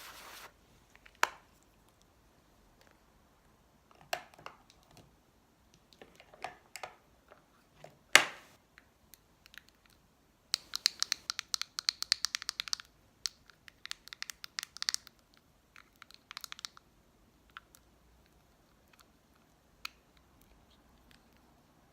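Close-miked handling of makeup items and packaging: scattered clicks and taps, one sharper click about eight seconds in, then a rapid crackling run of clicks for about two seconds just past the middle, typical of packaging being crinkled or torn.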